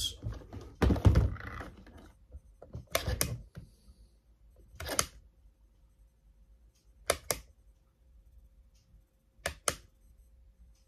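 Toggle switches on a FlySky hobby radio transmitter clicking, mostly flicked in quick pairs, which steps the model's lights through their flashing sequences. A heavier knock about a second in.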